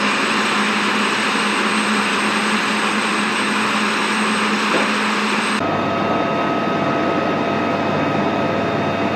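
UH-1Y Venom helicopter running on the ground, a loud steady mix of turbine engine noise and rotor noise with a low hum. About five and a half seconds in, the sound changes abruptly to the same machine heard from inside the cabin, with a steady higher whine in place of the hum.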